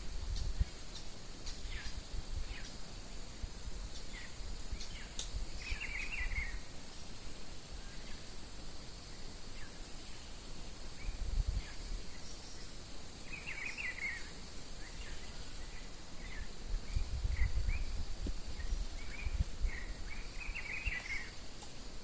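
Wild birds singing: a short warbling phrase repeated three times, about seven seconds apart, with scattered single chirps between, over a steady high-pitched hiss and a low rumble that swells near the end.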